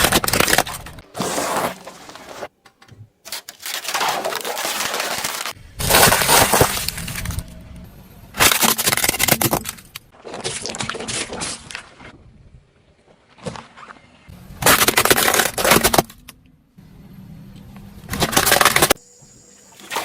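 A run of separate loud crunching, cracking bursts, about eight in all, each lasting a second or two with short lulls between: objects being crushed under a car's tyres.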